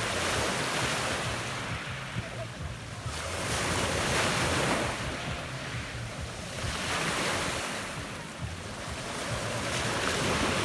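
Small Adriatic Sea waves breaking and washing over a pebble beach, the surge of water swelling and fading about every three seconds.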